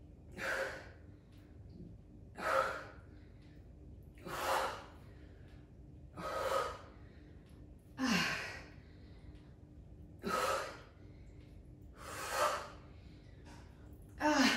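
A woman breathing hard under exertion during weighted side lunges: eight heavy breaths, one about every two seconds, a couple with a short voiced grunt at the start.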